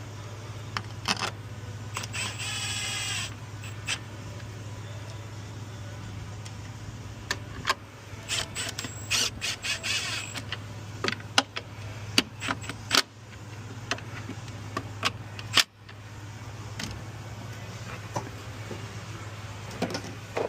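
Honda GX690 V-twin engine running steadily, its carburettor freshly cleaned and a new solenoid fitted, with scattered sharp clicks and knocks over it.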